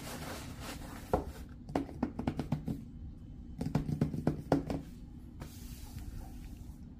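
A cardboard product box being handled on a wooden table: a quick string of light knocks and taps as it is set down and handled, from about a second in until near five seconds, then only faint rustling.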